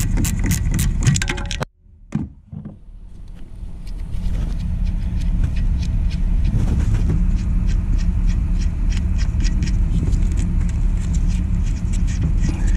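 Ratchet clicking in quick, even strokes as it loosens a 10 mm bolt with a deep socket. The clicking stops abruptly about a second and a half in. A steady low rumble follows, with fainter ratchet clicks over it.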